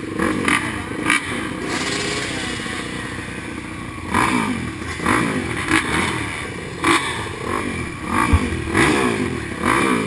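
Several motocross dirt bikes, the rider's Yamaha among them, idling and blipping their throttles at the starting gate, their overlapping engine notes rising and falling. Sharp knocks or clatters come about once a second.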